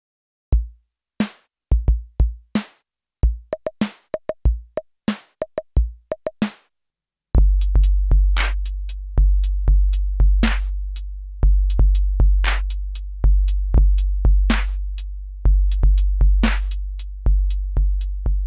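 MFB-501 Pro analog drum machine played by hand on its pads: scattered single hits, some low thumps and some short pitched tones, then from about seven seconds in a deep bass drum with a long tail struck over and over, mixed with sharp high ticks.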